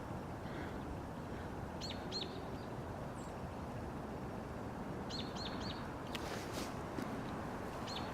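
Small bird chirping in short, quick, high-pitched groups: two calls about two seconds in, three a little after five seconds, and two more near the end. Underneath is a steady low background rumble.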